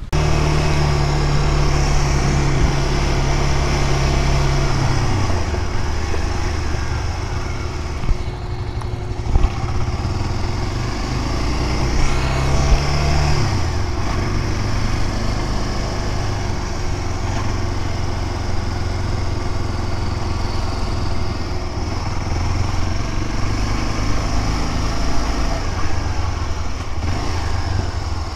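Honda Dominator 250 cc dual-sport motorcycle engine running while ridden, with its pitch dropping about five seconds in and again about halfway through.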